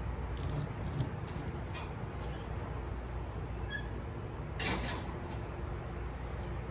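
Steady low hum, with copper wire pieces rustling briefly as they are settled on a kitchen scale about two-thirds of the way through. A few faint high squeaks come around two seconds in.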